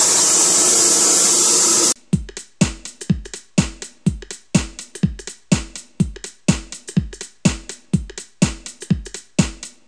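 CNC plasma torch cutting steel plate with a loud, steady hiss that cuts off suddenly about two seconds in. It is followed by electronic music with a drum-machine beat of about two kicks a second.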